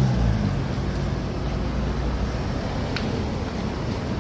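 City street traffic: a vehicle engine's low hum fading away in the first half second, then a steady rush of passing traffic, with one short click about three seconds in.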